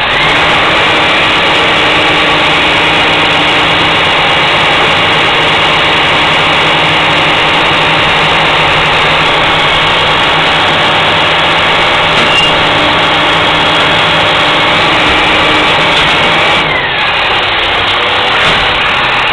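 Labrie Minimax garbage truck's engine running steadily at a constant speed, with a short falling whine about three-quarters of the way through.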